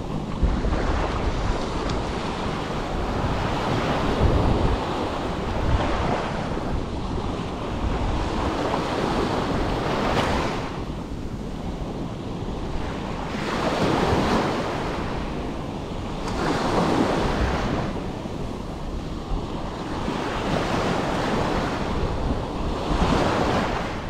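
Small sea waves breaking and washing up a sandy shore, swelling and fading every few seconds, with wind buffeting the microphone.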